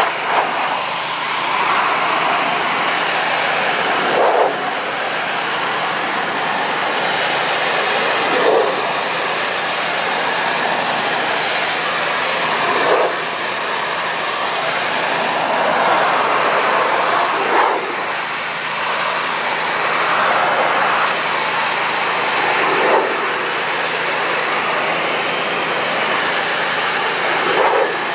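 Pressure washer spraying a vinyl wall through an extension wand: a steady hiss of high-pressure water. It swells briefly louder about every four to five seconds.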